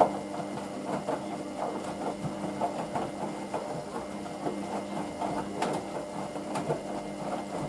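Hoover VisionDynamic washing machine on its 40 °C main wash: the motor hums steadily as the drum turns, with irregular soft knocks and swishes from the tumbling load.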